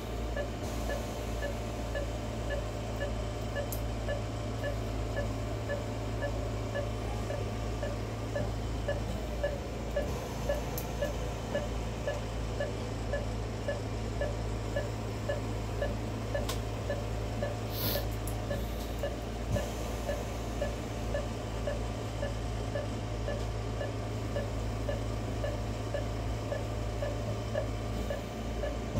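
Steady electronic beeping at about two a second, the pulse tone of an anaesthesia patient monitor, over a continuous low hum of equipment.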